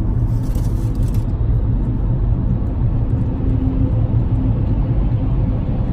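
Steady low road and engine rumble inside a moving car's cabin, with a faint crackle that stops about a second in.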